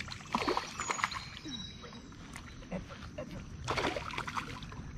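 Hooked chain pickerel splashing at the water's surface as it is played to the canal bank, in a cluster of splashes in the first second and another just before four seconds in.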